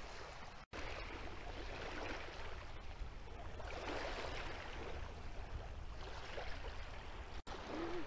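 Small waves lapping and washing at the shore, with a low wind rumble on the microphone. The sound breaks off for an instant twice.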